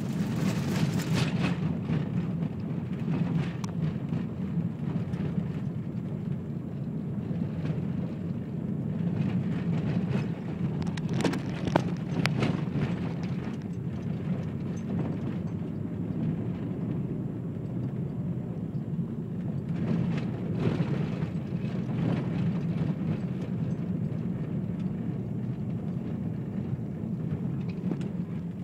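A car's engine and tyre noise heard from inside the cabin, a steady low rumble while driving over broken tarmac. A few sharp knocks and rattles come as the car hits bumps, the clearest about eleven and twenty seconds in.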